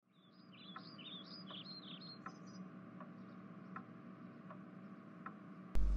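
Birds chirping for the first couple of seconds over an even ticking, about one tick every three-quarters of a second, with a steady low hum underneath. Near the end a loud low hum cuts in suddenly.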